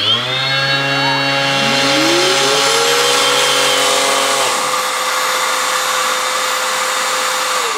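A Bosch cordless random orbital sander starts and runs. About a second later, the Bosch GAS 18V-12 MC cordless extractor's brushless BiTurbo motor spins up with a rising whine and runs steadily, started automatically by the vibration-sensing Bluetooth remote. The sander is switched off about four and a half seconds in, and the vacuum keeps running until it starts to spin down at the very end.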